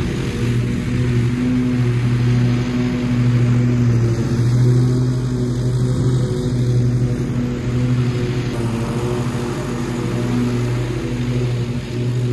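Cub Cadet zero-turn mower's engine running steadily under mowing load, a constant low hum.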